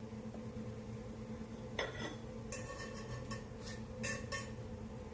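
A utensil clinking and knocking against a pan several times, the strikes ringing briefly, over a steady low hum.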